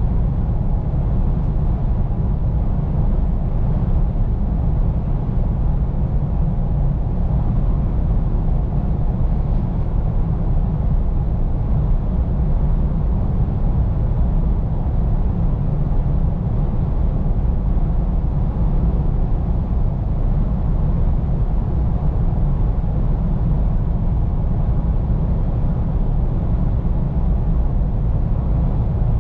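Scania P410 truck driving along, heard from inside the cab: its diesel engine gives a steady low drone over road noise, with no change in pace.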